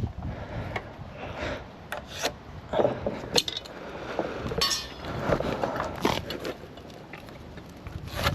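Carpenter handling rafter timber and hand tools: scattered knocks, light clinks and scraping rubs.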